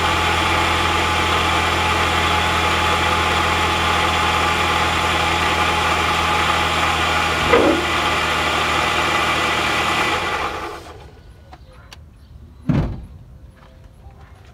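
Car engine idling steadily while the alternator charges the battery, then switched off about ten seconds in, its sound dying away. A couple of seconds later comes a single dull thump.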